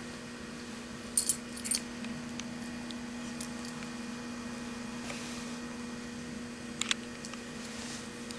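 A cat's collar jingling in a few short metallic clinks as it rubs its head against a leg, a cluster about a second in and two more near the end, over a steady faint hum.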